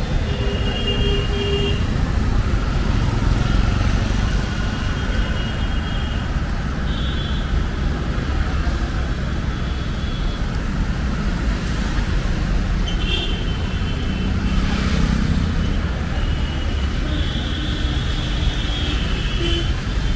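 Busy city road traffic: a steady rumble of passing cars and buses, with brief high-pitched tones on and off.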